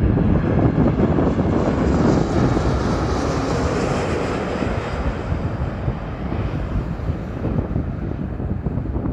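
Jet airliner passing low overhead on landing approach: steady engine noise that swells to its loudest about three to four seconds in, then slowly fades as the plane descends toward the runway.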